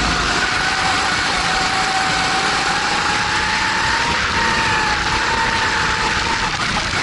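Formula 270 kart's 270cc four-stroke single-cylinder engine running at high revs on the track, its pitch climbing slowly over the first few seconds and easing off near the end, over a steady rushing noise.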